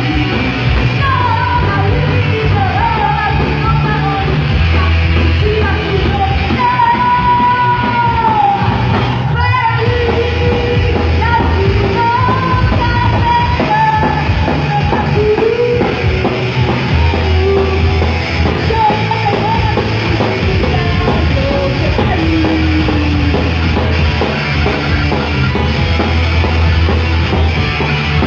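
Live heavy metal band playing loud: distorted electric guitars, bass and drums under a woman's singing voice, with a brief dropout about nine seconds in.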